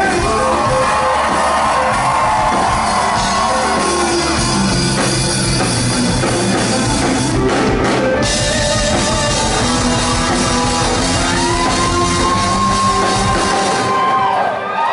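Live country-rock band playing loud through the venue PA: drum kit, bass and electric guitars. The drums and bass stop shortly before the end as the song finishes.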